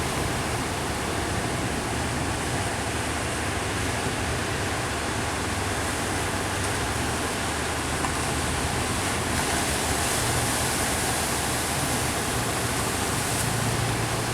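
Steady rushing of surf breaking on a beach, with a faint low hum underneath that grows slightly near the end.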